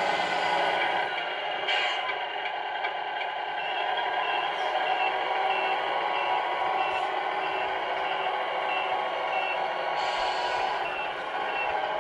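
Electronic sound unit of a Tamiya Scania R470 RC truck playing a truck diesel running note, with a reversing alarm beeping steadily about two to three times a second from a few seconds in until near the end. A brief hiss of air comes about two seconds in.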